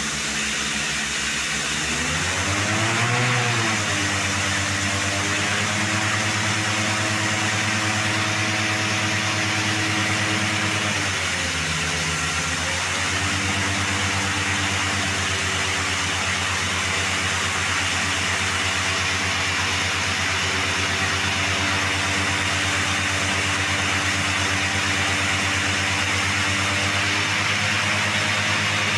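A machine engine runs steadily, rising in speed about two seconds in, dipping briefly around eleven seconds, then holding steady. Under it, water and compressed air rush constantly out of a borewell as it is blown clean by a high-power air compressor.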